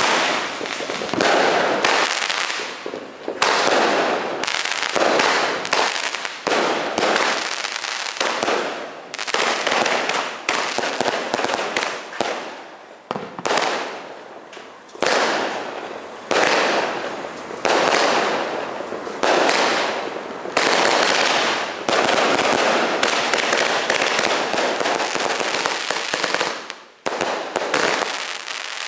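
A 49-shot, 7-phase consumer fireworks cake firing shot after shot, about one a second. Each is a sharp bang that dies away, with crackling, and there is a brief lull near the end.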